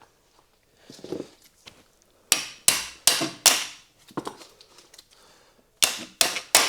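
Hammer blows on the end of a 2018 Hyundai Ioniq Hybrid driveshaft, knocking it out of the wheel hub. There are four quick strikes a little over two seconds in and three more near the end, each ringing briefly.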